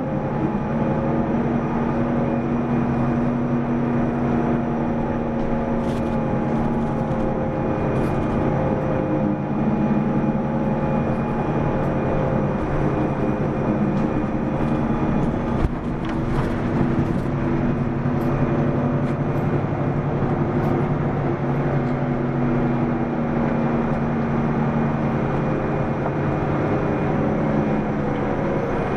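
Mitsubishi Fuso PDG-AA273KAN city bus's diesel engine heard from inside the bus on the move, its pitch rising and falling as the bus changes speed, with one sharp knock about halfway through.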